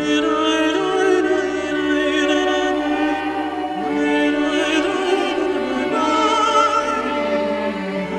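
Music: a sung melody held with vibrato over instrumental accompaniment.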